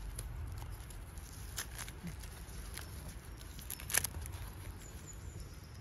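Oyster mushrooms being pulled off a fallen log by a gloved hand: scattered small snaps and rustles, with one sharper crack about four seconds in.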